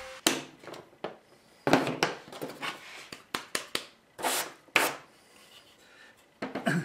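A string of knocks and brushing scrapes of hand work on a wooden workbench: a pocket-hole jig unclamped and set aside, wood chips swept off the bench by hand, and a pine board picked up.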